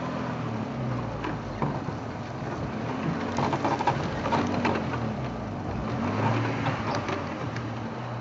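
Game-drive vehicle engine running at low speed as it creeps off-road through bush, its pitch rising and falling gently with the throttle. Scattered knocks and clicks sound over it.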